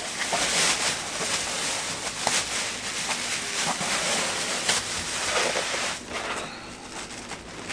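Plastic wrap and foam packing rustling and rubbing as they are pulled from around a printer, with a few light knocks. It grows quieter about six seconds in.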